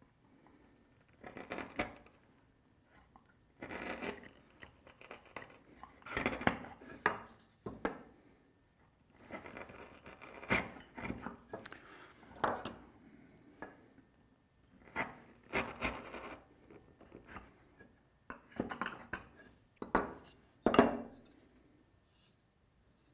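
Chisel paring wood from the bottom of a mortise by hand: a string of short scraping strokes with sharp clicks and brief pauses between them.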